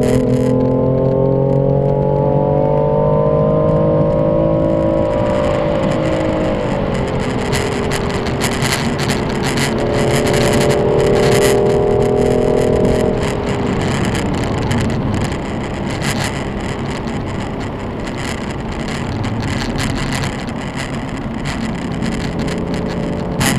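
Car engine pulling under load with its pitch climbing slowly, then dropping quickly about six seconds in, holding steady briefly and fading out about halfway through. After that a rough rushing noise with crackles and clicks remains.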